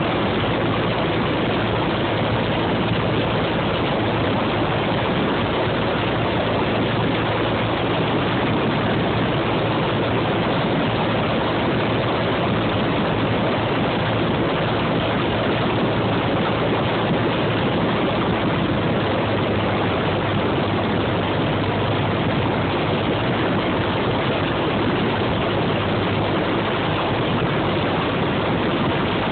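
Steady cabin noise of a small high-wing propeller plane in flight: engine and propeller drone with a low hum under the rush of air, unchanging throughout.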